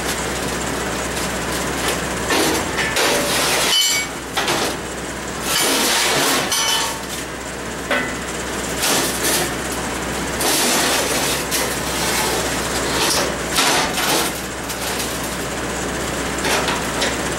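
Square steel tubing being handled and set down on a steel welding table: irregular clanks, knocks and scrapes of metal on metal, over a steady low hum.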